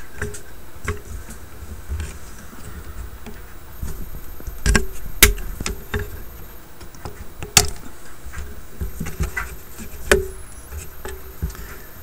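Wire cutters snipping through old wiring and tape inside a vintage tube radio chassis: a handful of sharp clicks, the two loudest about five and seven and a half seconds in, over low handling noise of the stiff wiring.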